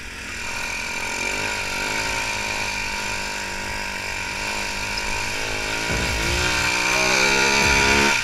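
ATV engine running under throttle, its pitch climbing as it accelerates and rising again about six seconds in, growing louder toward the end.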